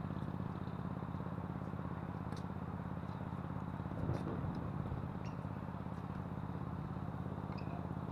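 Steady low background rumble, with a few faint pops of a tennis ball struck by rackets, the clearest about four seconds in.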